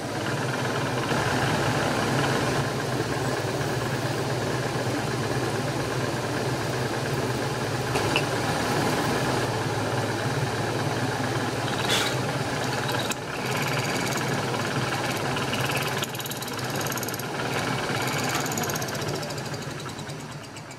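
Milling machine cutting a slot into a metal angle block with a small slot drill: the spindle motor hums steadily under the chattering of the cutter in the metal, with a few sharp chip ticks. The sound fades near the end.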